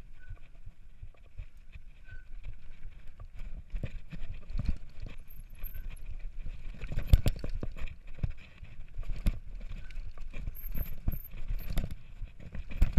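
Charge Blender mountain bike rattling and knocking as it is ridden fast over a bumpy dirt singletrack, with tyre noise on the ground and low wind rumble. The clatter grows busier partway through, with the sharpest knock about 7 seconds in.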